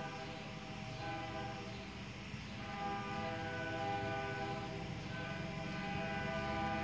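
Diesel locomotive horn (LDRR 1504) sounding several long, steady chord blasts with short breaks between them, over the low rumble of the locomotive's engine.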